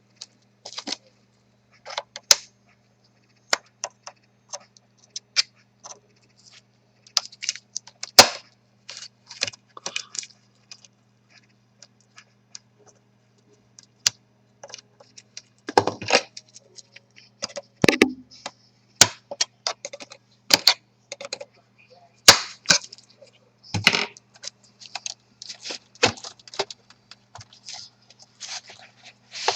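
Plastic clips of a laptop's bottom cover snapping loose one after another as the cover is pried off, a scattering of sharp clicks and cracks with several louder snaps, over a faint steady hum.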